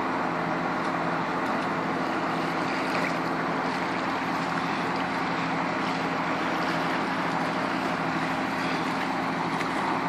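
A car engine running steadily with a low, even hum, under a continuous rushing noise.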